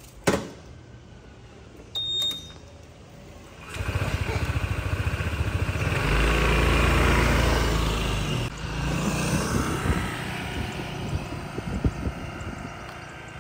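A motor vehicle engine passing: it comes in about four seconds in, is loudest a few seconds later, then eases off. A single sharp knock sounds just before it starts.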